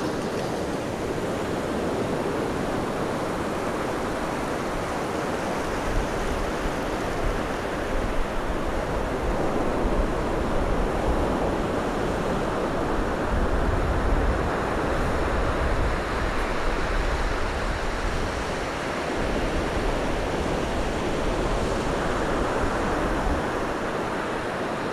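Ocean surf breaking on the beach: a steady rushing of waves, with a low rumble under it from about six seconds in.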